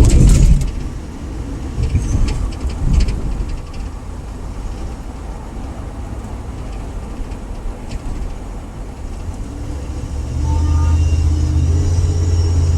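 Ford Crown Victoria's V8 exhaust rumbling as the car is driven, with a deep, throaty note from a hole in the left rear exhaust. There is a sharp thump right at the start and a few smaller knocks soon after, and the rumble grows louder about ten seconds in.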